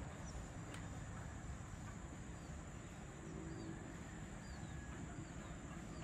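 Faint rural ambience: a steady high insect drone with a handful of short, falling bird chirps scattered through it, over a low rumble.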